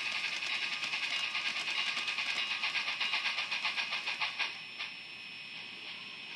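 Tsunami sound decoder in an HO-scale Athearn Genesis 4-8-4 steam locomotive playing steam exhaust chuffs in a fast, even rhythm through its small onboard speaker as the engine is given speed. The chuffing cuts off abruptly about four seconds in, leaving a faint steady hiss.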